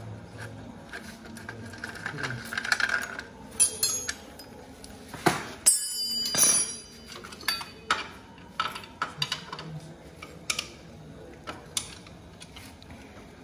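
Metal hand tools clicking and clinking against a motorcycle engine's casing and parts as it is worked on with a T-handle wrench, with a short metallic jangle ringing about six seconds in.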